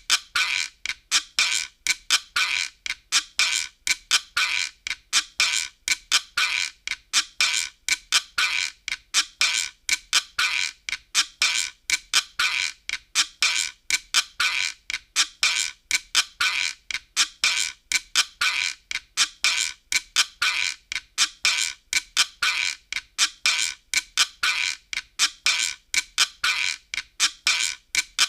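A looping sound effect of short, sharp, high squeaky chirps, repeating quickly at about three a second without a break.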